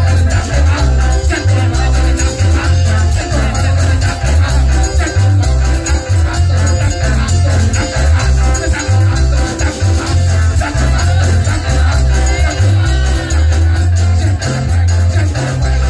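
Loud worship music in a Latin rhythm, with a heavy pulsing bass line and steady shaker percussion.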